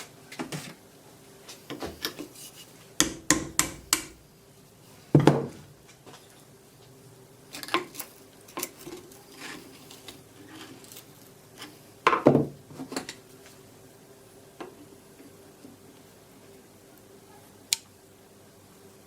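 Metal parts of a WW1 British No. 80 Mk 6 shell fuse clinking and knocking as it is taken apart by hand: scattered light clicks, a quick run of knocks about three seconds in, and two heavier clunks about five and twelve seconds in. A faint steady hum lies underneath.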